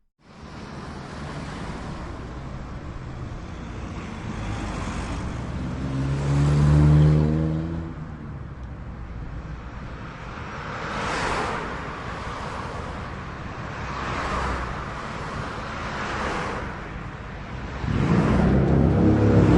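Cars driving by on a road, one after another, over constant traffic noise. The loudest pass comes about a third of the way in, with a low engine hum. Smaller passes with tyre hiss follow, and another loud vehicle comes up near the end.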